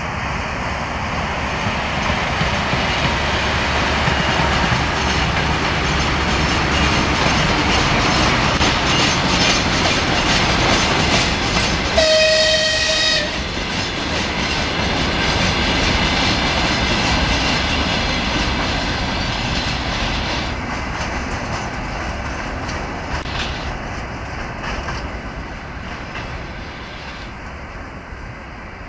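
TEM14 diesel locomotive hauling a short freight train past at speed, the engine and wheels on the rails growing louder as it approaches. One horn blast of about a second sounds as the locomotive passes. The freight wagons follow with a clickety-clack of their wheels that fades away near the end.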